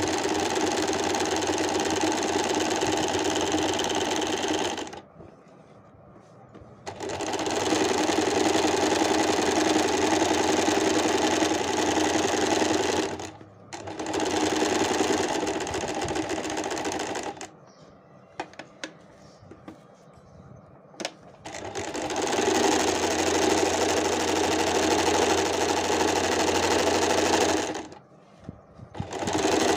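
Usha Stitch Magic electric sewing machine running at a steady speed, stitching a dense decorative embroidery stitch (pattern K, stitch width 5, length 1). It stops and restarts four times, the longest pause about halfway through holding a few light clicks.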